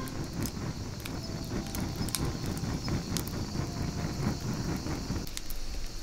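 Wood fire crackling in a metal fire pit: irregular sharp pops and snaps over a low rumble that drops away about five seconds in.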